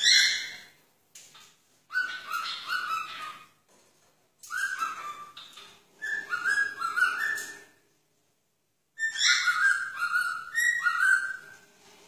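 Cockatiel whistling a tune in four short bouts of quick stepped notes, with brief pauses between them.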